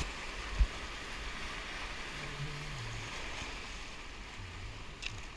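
Steady rush of turbulent river whitewater, with one short low thump about half a second in.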